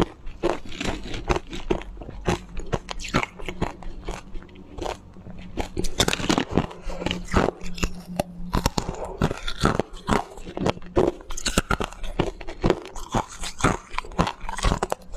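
Hard coloured ice being bitten and chewed: a fast, uneven run of sharp crunches, several a second.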